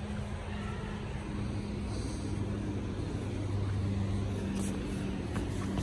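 A steady low motor-vehicle engine hum with street noise, a few faint clicks near the end.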